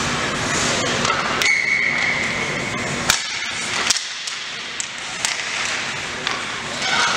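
Ice hockey game: a referee's whistle blows for about a second and a half, then a few sharp clacks, over steady crowd and rink noise.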